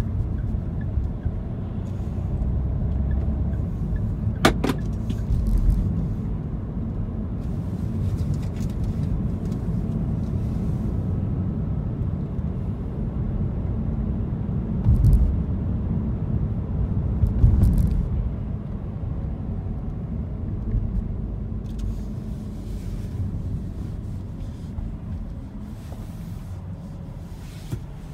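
A car driving on city streets, heard from inside the cabin: a steady low rumble of engine and road noise. A sharp click comes about four seconds in, and a couple of louder low bumps come past the middle.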